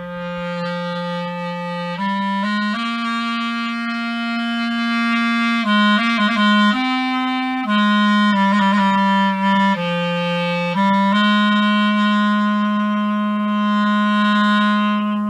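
Solo clarinet played live: a slow melody of long held notes in its low register, ending on a long held note.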